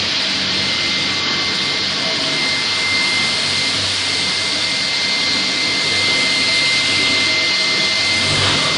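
Industrial dust-collector vacuum running steadily, a loud even rushing with a constant high whine.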